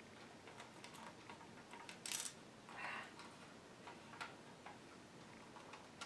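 Faint small clicks and taps of fingers fitting a small metal nut onto a machine screw on a plastic kit base, with one brief louder scrape about two seconds in and a short soft rustle just after.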